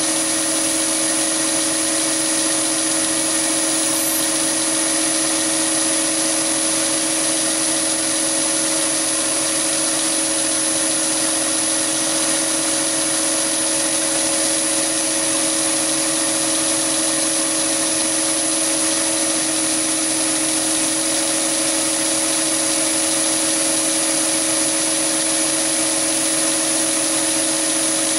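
Chinese mini lathe running at a steady speed with a constant hum and a high whine, while a small solid-carbide boring bar takes a cut inside a bore in 316 stainless steel.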